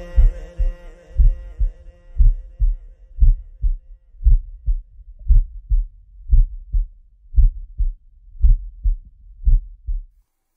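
Heartbeat sound effect in a song's break: a low double thump, lub-dub, about once a second, about ten times, after a held sung note fades away.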